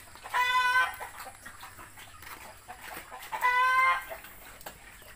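Two loud, drawn-out calls from a farm animal, each about half a second long and about three seconds apart.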